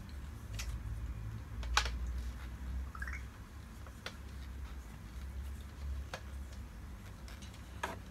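Scattered sharp clicks and light knocks of plastic parts being handled and turned while a table ring light is put together, the loudest about two seconds in, over a low rumble of handling. A brief faint rising squeak about three seconds in.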